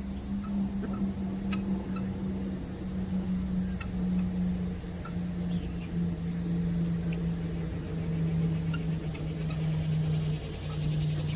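A steady low mechanical hum, sinking slowly in pitch, with faint high chirps and clicks scattered through it.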